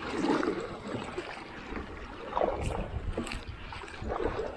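Kayak paddling on a river: paddle strokes in the water recurring every second or two, over wind on the microphone.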